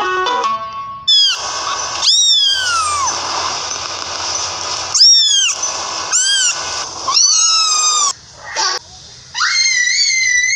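A small kitten mewing repeatedly: thin, high calls that fall in pitch, each under a second long, after a few plucked guitar notes end in the first second. Near the end comes a longer, steadier high squeal.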